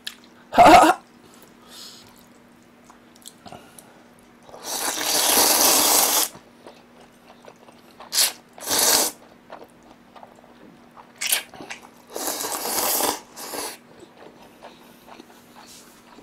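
Cold buckwheat soba noodles slurped into the mouth in about three long, loud, airy pulls, with quieter chewing between them. A single sharp knock comes less than a second in.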